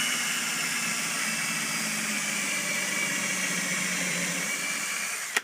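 Power drill running steadily as it bores a pilot hole straight down into particle board, cutting off abruptly near the end.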